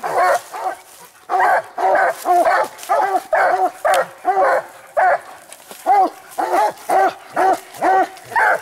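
Several Treeing Walker coonhounds barking treed at the base of a tree: a fast, steady run of short barks, about two to three a second, with a brief lull about a second in. This is the sign that the hounds have a raccoon up the tree.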